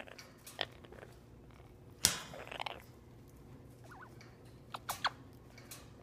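Red-crowned amazon parrot making small clicks and chirps: a few sharp clicks, the loudest about two seconds in and followed by a short rasp, and brief faint chirps around four seconds in.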